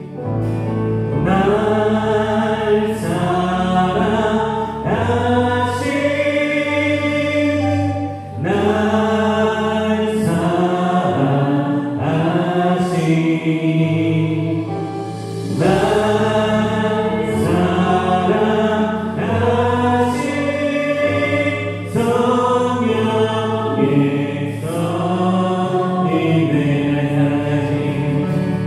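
Church worship band playing a praise song while several voices sing along in phrases, Yamaha Montage 8 keyboard and electric bass guitar under the singing.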